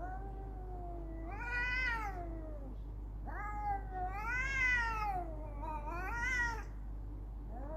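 Cats yowling in a fight standoff: three long, drawn-out wails that rise and fall in pitch, the first lasting over two seconds, with a steady low hum underneath.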